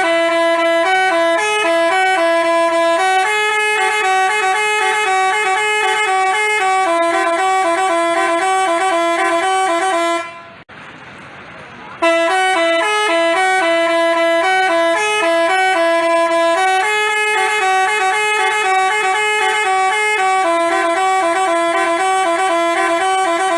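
Basuri telolet bus horn playing a fast, stepped melody of quick notes. The tune stops about ten seconds in, then starts again after a short pause and repeats.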